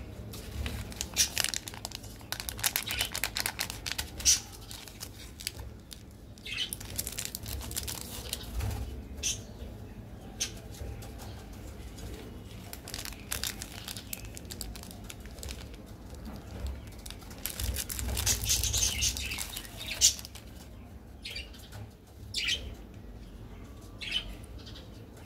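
Plastic candy-bar wrappers crinkling and rustling in irregular bursts as chocolate wafer bars are unwrapped by hand, loudest in the first few seconds and again about eighteen to twenty seconds in.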